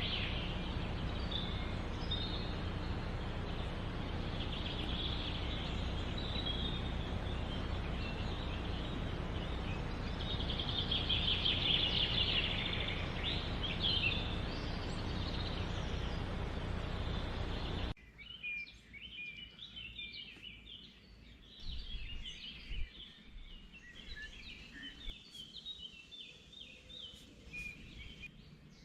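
Birds calling over a steady background noise. About eighteen seconds in, the noise cuts off abruptly, and many short, quick chirps go on over a much quieter background.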